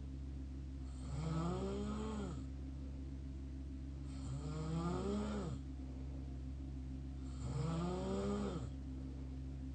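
Mouth snoring: three snores about three seconds apart, each lasting about a second and a half with a pitch that rises and then falls, over a steady low hum.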